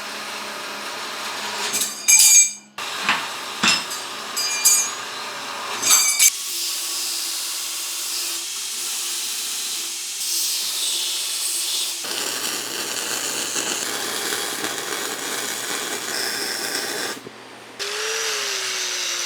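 Steel pieces clinking together several times with a metallic ring, then a power tool running steadily on steel. It stops briefly near the end and starts again with a tone that dips and settles.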